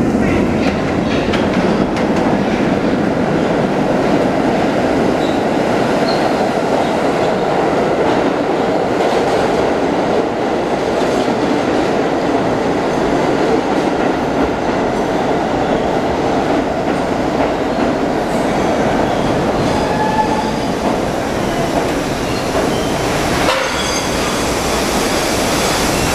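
An R32 subway train rolling into a station along the platform, its wheels running on the rails in a loud, steady rumble. Short high wheel squeals come in near the end.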